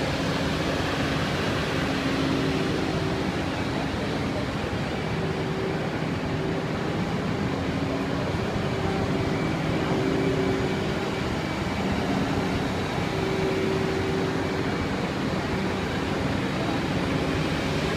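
Komatsu PW180 wheeled excavator running, its diesel engine steady under a whine that comes and goes as the hydraulics swing and lift the boom.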